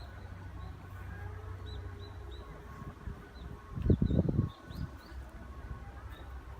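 Small birds chirping in short, repeated high notes over a low steady background hum, with a brief loud low rumble about four seconds in.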